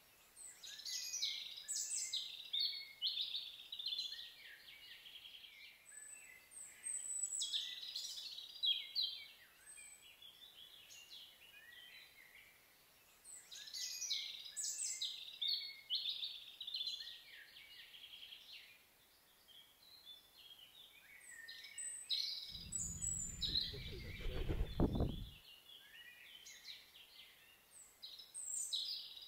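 Small songbirds singing in repeated phrases of high, quick, trilling notes, a burst every few seconds. Around two-thirds of the way through, a low rumble lasts about three seconds and then cuts off.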